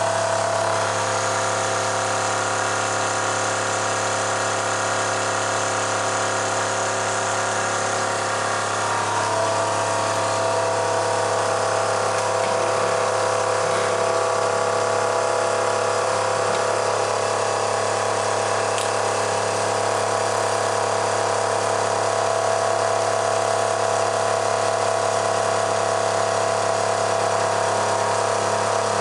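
An electric drive motor spinning a car alternator on a bench rig, running with a steady electric whine over a low hum. The whine's pitch dips slightly about nine seconds in, as the load on the alternator changes.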